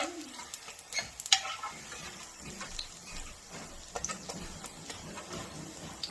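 Tortillas sizzling as they crisp in a pan, with a few sharp clinks of a utensil against the pan, most of them in the first couple of seconds.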